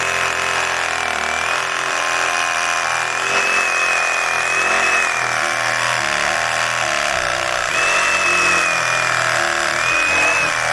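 Power saw running continuously through a cut, its high whine dipping and rising as it loads and frees up.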